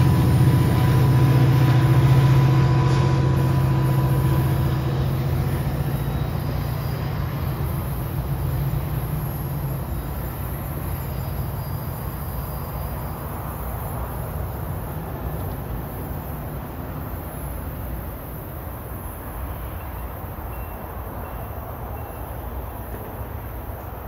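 Diesel passenger train pulling out of the station, its low engine drone loudest at first and fading steadily as it moves away, dying down after about ten seconds.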